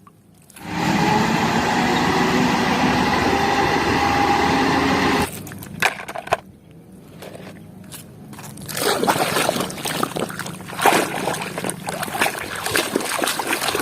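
Water running steadily for about five seconds while a muddy plastic toy sand truck is washed, then brushing and scraping on the plastic, busier over the last few seconds.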